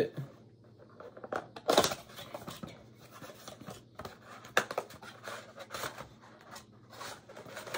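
Cardboard of a Panini Prizm basketball blaster box being opened by hand: flaps bending and rubbing, and a tear strip pulled off, in a string of crisp snaps and scrapes. The loudest snap comes about two seconds in.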